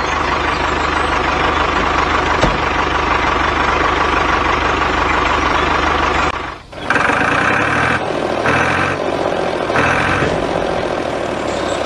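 Tractor engine sound effect running steadily, laid over a toy tractor driving. It drops out briefly about six and a half seconds in and comes back, with three short higher-pitched tones repeating over it.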